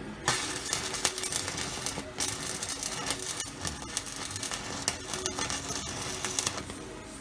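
Stick welding with a 6010 electrode: the arc is struck just after the start and crackles and sputters for about six seconds, then is broken off near the end.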